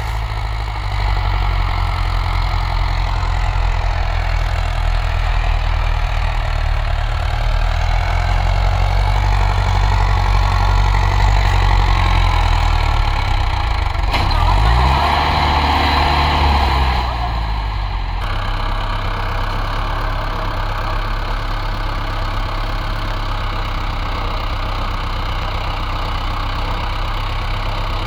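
Swaraj XM tractor's diesel engine labouring as it pulls a fully loaded sand trolley through soft sand. The engine note swings up and down about halfway through, then settles to a steadier, slightly quieter run.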